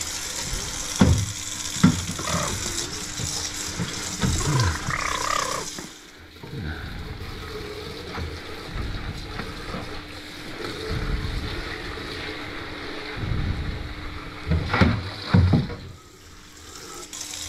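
Water running from a kitchen faucet into the sink, a steady rush that eases about six seconds in, with a few scattered knocks and thumps.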